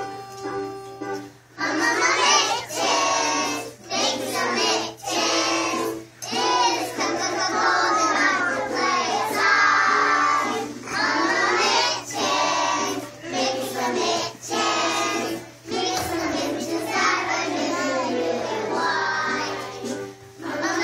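A group of kindergarten children singing a song together, phrase by phrase with short breaks, coming in about a second and a half in after a few held keyboard notes.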